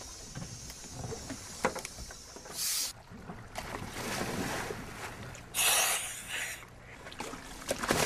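Divers splashing into the sea off the side of a boat: two bursts of splashing water, about two and a half seconds in and a louder one near six seconds, over wind on the microphone.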